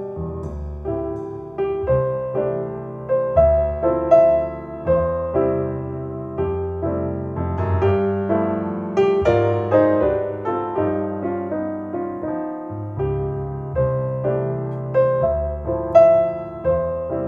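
Piano music, a melody of struck notes over low bass notes, played back over Paradigm Persona 7F floorstanding loudspeakers driven by an Accuphase E-380 integrated amplifier.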